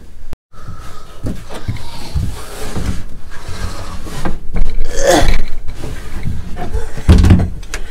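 Clothing rubbing and knocking against a handheld camera as a man clambers through a cramped wooden boat hull, with a loud breathy exhale or grunt about five seconds in and a heavy low thump near the end. The sound cuts out briefly about half a second in.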